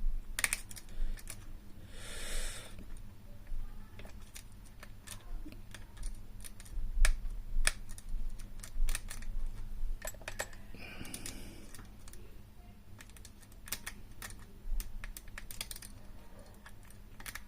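Small irregular metallic clicks and taps of improvised wire picks working inside a Burg Wächter lever padlock, tapping the levers up one at a time.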